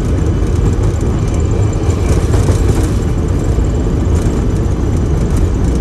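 Cockpit noise of a Boeing 737-500 accelerating down the runway on its takeoff roll: the CFM56-3 turbofans at takeoff thrust and the undercarriage on the runway give a loud, steady, deep rumble.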